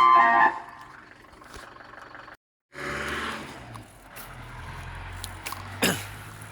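An ice cream van's chime tune ends about half a second in. It is followed by a vehicle engine running steadily with street noise, and a short falling whistle near the end. The sound cuts out briefly midway.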